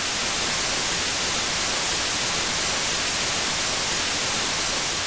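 Television static: a steady, even hiss of white noise used as a sound effect, beginning to fade near the end.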